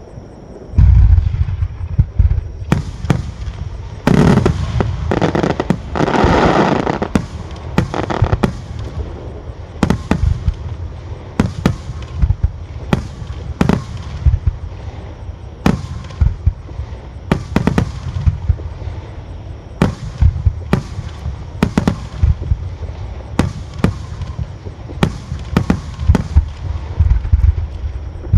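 Aerial firework shells bursting in quick succession: a loud deep boom about a second in, then a steady run of sharp bangs and cracks, with a denser noisy stretch a few seconds in.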